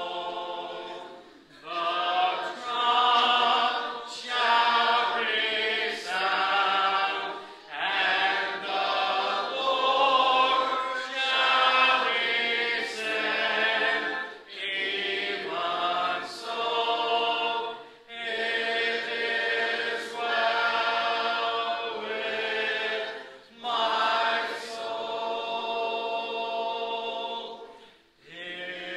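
Congregation singing a hymn a cappella, many voices together without instruments, line by line with short breaks between phrases.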